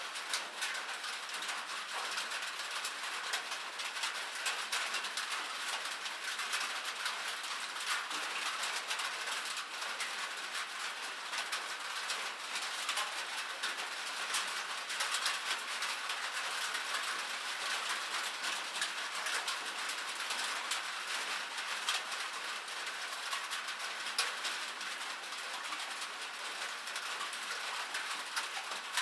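Light rain falling: a steady patter of many fine drops ticking close together.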